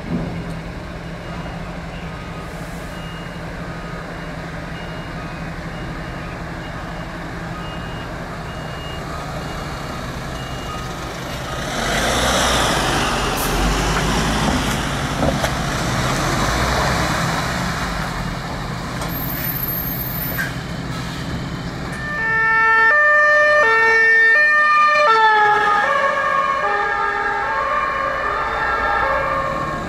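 Emergency vehicles on a call: a low engine rumble with a faint siren stepping between two pitches in the distance, then a vehicle passes close with a rush of engine and tyre noise about halfway through. Near the end a loud two-tone siren (German Martinshorn) sounds close by.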